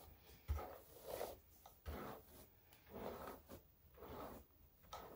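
A paddle hairbrush drawn through dry, unbrushed hair: about six soft swishes, roughly one a second.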